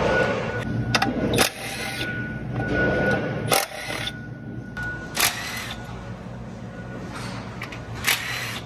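Milwaukee Fuel cordless impact driver running in short bursts as bolts are taken out of the engine for a head gasket job. A few sharp knocks of metal tools come in between.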